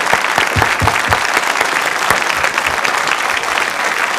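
Studio audience and panel applauding: many hands clapping at a steady level throughout.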